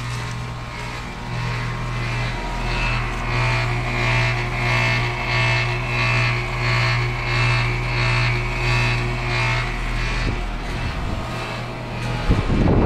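1995 Carrier TECH2000 SS heat pump outdoor unit running in heat mode: a steady compressor hum under the condenser fan's whoosh, which swells and fades about one and a half times a second. A loud low rumble comes in briefly near the end.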